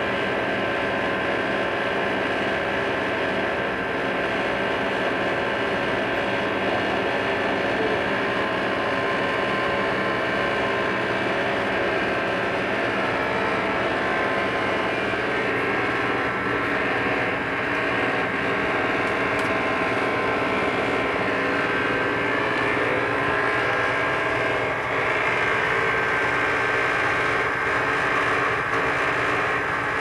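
Steady mechanical drone of running motors or fans, with an even hum and a thin high whine over it, unchanging throughout.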